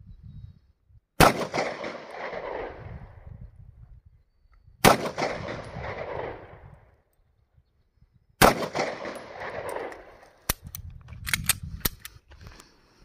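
Three single pistol shots from a Stoeger Cougar, about three and a half seconds apart, each followed by roughly two seconds of echo. Near the end a quick run of sharp clicks as the pistol is handled after the string.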